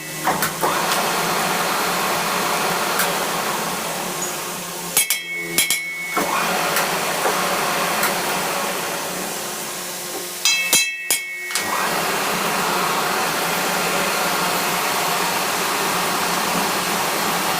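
Steady whirring noise from a workshop machine or power tool, broken twice by a short cluster of hammer blows on metal. The blows ring with a clear metallic tone.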